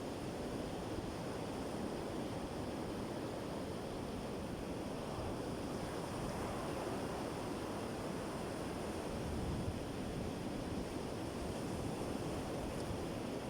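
Sea waves washing onto a shore, a steady even noise with no single crash standing out.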